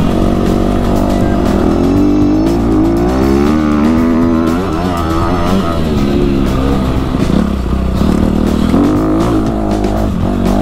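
Dirt bike engine running under way on a rough trail, its pitch rising and falling as the throttle is worked.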